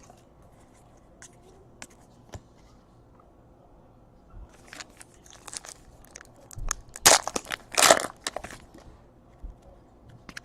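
Trading cards and their plastic being handled: a few faint clicks, then a run of crinkling, scraping strokes from about four seconds in, the loudest two close together a little past the middle.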